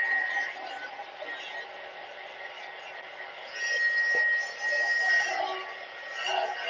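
Handheld craft heat tool blowing hot air to dry paint, a steady hiss with a thin high whine. It is loud at first, drops about half a second in, and swells again midway.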